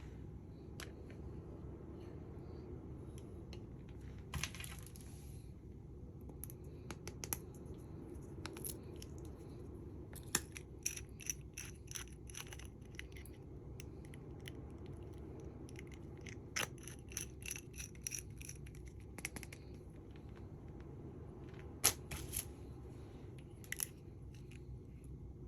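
Scattered small clicks and taps, with a brief rustle of packaging, as small makeup cases and jewelry are handled, over a steady low hum.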